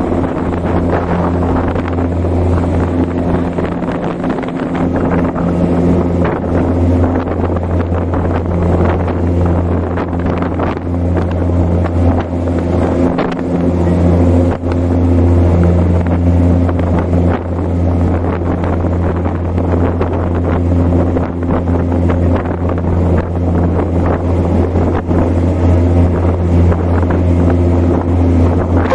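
Sightseeing boat's engine running steadily under way, a continuous low drone, with wind buffeting the microphone.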